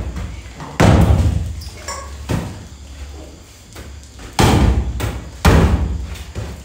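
Heavy bangs from a hand-held black round-headed striker hitting the wall and floor: three loud blows and one lighter knock, each a sudden thud that dies away quickly.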